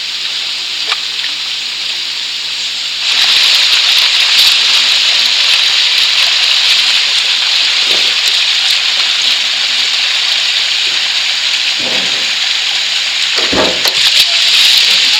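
Food sizzling as it fries: a steady hiss that jumps much louder about three seconds in and stays there.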